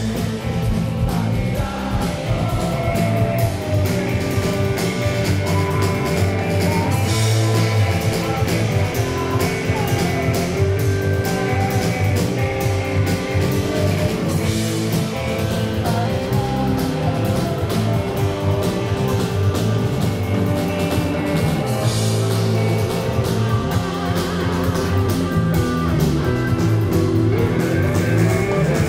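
A rock band playing live: electric guitar, bass guitar and drum kit, with singing.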